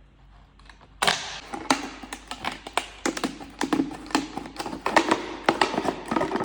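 Thin plastic bottle being cut, crackling and snapping in quick, irregular clicks that start about a second in.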